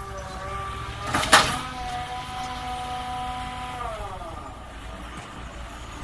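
Truck-mounted crane's engine running high with a steady whining tone, its pitch sliding down about four seconds in as the revs fall. A single loud bang comes a little over a second in.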